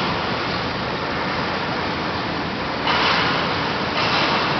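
Steady noise of a large railway station hall, with two louder bursts of hiss about three and four seconds in.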